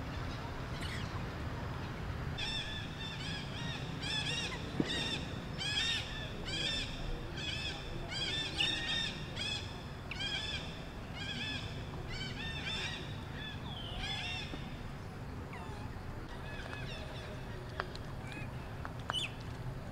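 A rapid series of short, high-pitched animal calls, each rising and falling in pitch, about one to two a second. They start a couple of seconds in and die away about two-thirds of the way through.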